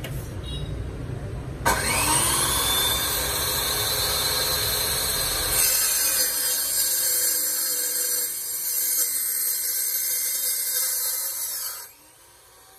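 Makita LC0700F cut-off saw with a carbide-tipped blade switched on, its motor whining up to speed, then the blade cutting through a steel tube for about six seconds. Near the end the cut finishes and the motor, which has an electric brake, winds down quickly.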